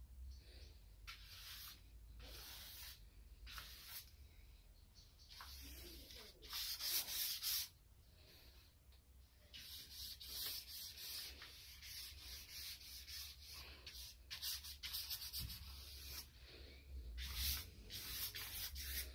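Flat paintbrush loaded with acrylic paint being stroked across a large sheet of cartridge paper: a run of separate scraping brush strokes of varying length, the longest and loudest about seven seconds in.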